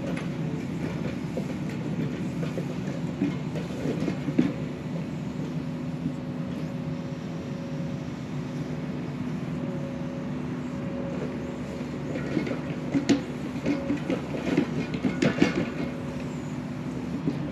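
Diesel engine of compact construction equipment running steadily, with metal clanks and rattles from the tracks and bucket. There are a few around four seconds in and a busier run of knocks in the last few seconds.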